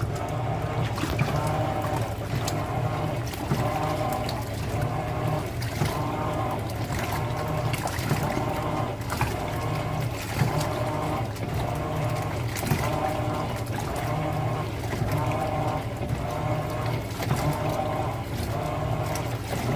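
Electrolux Premium Care LPR14 kg washing machine washing a load of towels: the motor runs with a steady low hum while water and wet towels slosh in the drum in a rhythmic cycle about once a second.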